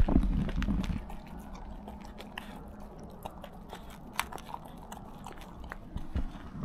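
A dog crunching dry kibble from a plastic tub: a run of small crisp crunches and bites. A low rumbling thump in the first second is the loudest part.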